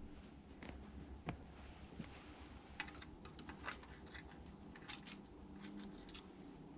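Faint scattered small clicks and light handling noise of hand work at a grease fitting on a mini excavator's bucket pivot, with a rag and grease gun. Under it is a faint steady low hum.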